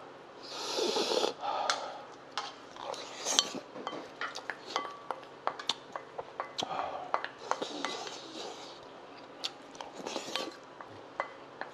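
Spoon and chopsticks clicking and scraping against ceramic bowls while eating, in irregular clinks. Two short rushes of hissing noise, one about a second in and one around eight seconds.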